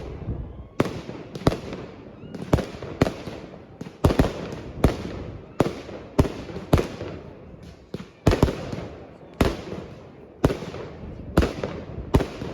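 Fireworks going off in a display: an irregular string of sharp bangs, about one to two a second, each trailing off briefly, with a steady low rumble between them.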